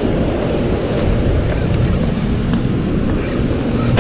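Steady, loud rush of turbulent water below a dam, with wind buffeting the microphone and a few faint ticks.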